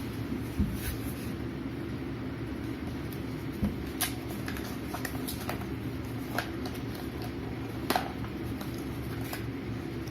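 Scattered small clicks and taps as the microphone's box and packaging are handled, about half a dozen over several seconds, over a steady low hum in the background.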